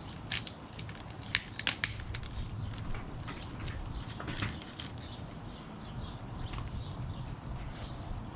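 A string of sharp clicks and light knocks, several close together in the first two seconds and a few softer ones later, over steady low background noise: parts and tools being handled while fitting a motorcycle's new oil filter and filter cover.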